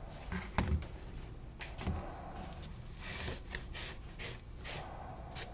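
Wood being rubbed by hand in a series of short scrubbing strokes, as when working stain into a wooden piece. There are a couple of light knocks from things being handled about half a second and two seconds in.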